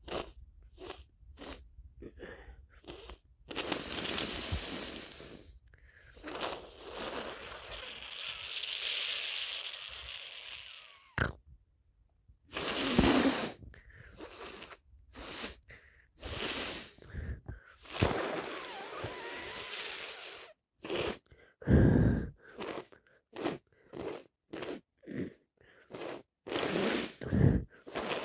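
A person with a head cold sniffing over and over through a congested nose, with longer stretches of heavy breathing and a couple of louder sudden bursts, near the middle and about three-quarters through.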